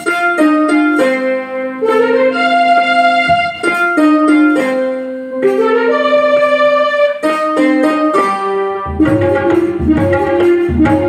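Instrumental interlude of a devotional bhajan: a keyboard instrument plays the tune in held single notes. Tabla comes in about nine seconds in with a quick rhythm.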